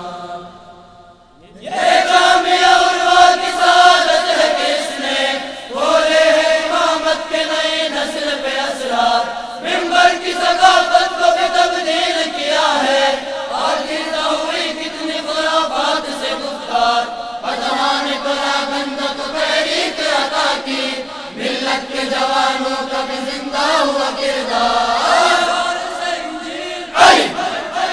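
A boy's voice singing an Urdu tarana, a religious anthem, in long, chant-like held lines. The singing breaks off briefly about a second in, then resumes.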